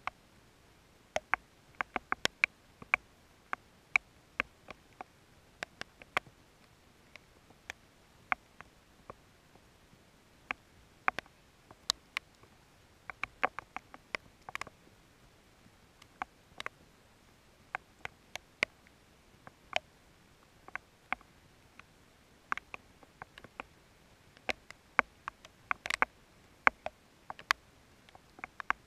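Scattered raindrops hitting close to the microphone during a thunderstorm: sharp, irregular ticks, a few a second, bunching into quicker runs now and then.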